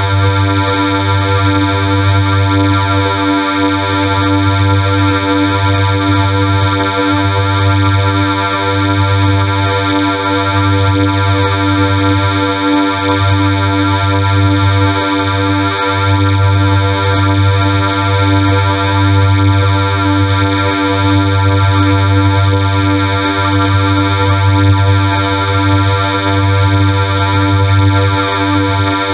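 Harsh, loud electronic sound effect: a dense stack of steady synthesized tones with a strong low hum that pulses unevenly.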